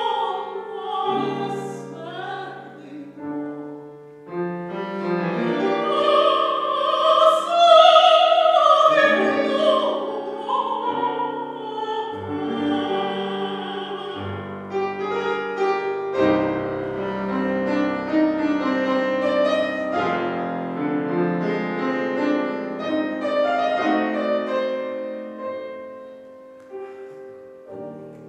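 A woman singing a Ukrainian folk song in classical style with a grand piano, a C. Bechstein, accompanying her. The voice climbs to its loudest, high note about eight seconds in and stops about halfway through, after which the piano plays on alone.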